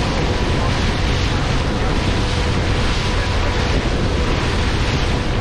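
Wind buffeting the microphone and water rushing past a glass-bottom boat under way, with a faint steady hum underneath.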